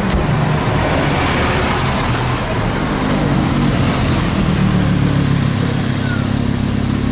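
A car engine running close by with a steady low note, and a brief click right at the start.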